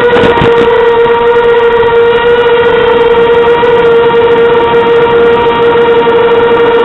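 Mini quadcopter's brushless motors and propellers whining at a steady pitch in flight, with only slight wavers in speed.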